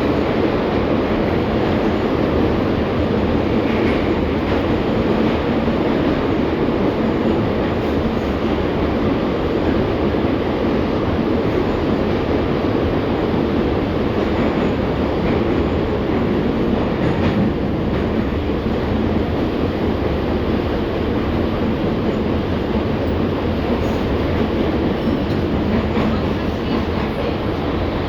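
LVS-2009 tram in motion, heard from the passenger cabin: a steady rumble of wheels rolling on the rails with occasional faint clicks.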